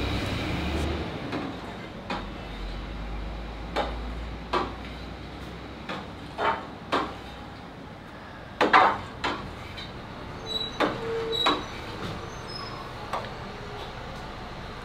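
A long wooden paddle stirring a steel brew kettle of boiling wort, knocking against the kettle with irregular sharp knocks over a steady hiss. The loudest knock comes a little past the middle.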